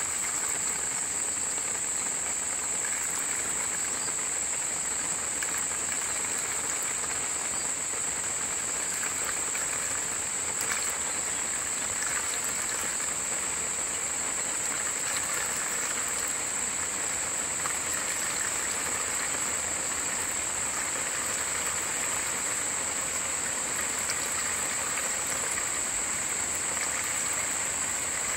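A thin stream of water pouring from a hydraulic ram pump's delivery pipe and splashing into a plastic measuring jug: the Bunyip PA13's output of about 3.8 litres a minute. Over it runs a steady high-pitched drone.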